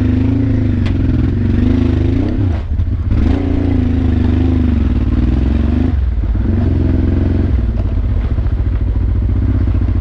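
Honda Transalp's V-twin engine pulling the bike up a rough, rutted track, its note rising and falling with the throttle. It dips briefly about two and a half seconds in and runs steadier from about eight seconds.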